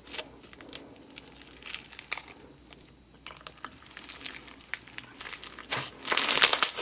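Clear glue floam full of foam beads being poked and squeezed by hand: a run of small crunches, crackles and bubble pops, which grows much louder and denser about six seconds in.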